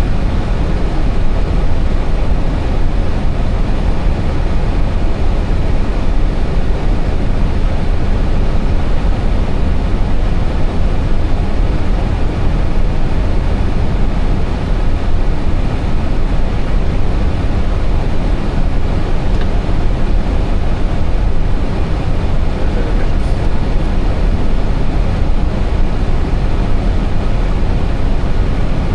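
Steady cockpit noise of an Airbus A320 on approach: an even rush of air with a deep low hum, unchanging throughout.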